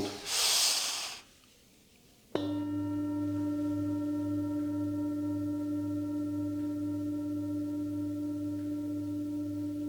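A loud breath, then about two seconds in a Tibetan singing bowl is struck once and rings on steadily, with a slowly pulsing low hum under its tone.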